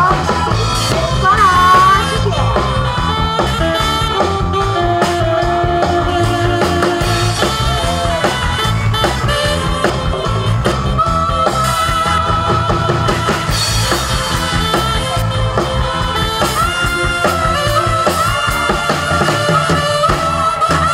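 Live getai stage band music, loud through the PA: a steady drum-kit beat under a full band with a wavering lead melody.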